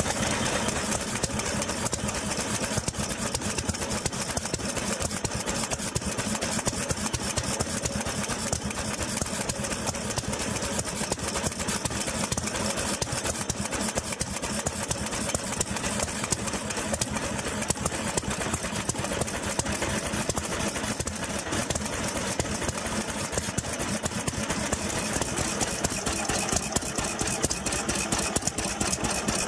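Two 2 hp Sundial stationary engines, a Type A and a Type B, running steadily with a fast, even stream of mechanical knocks.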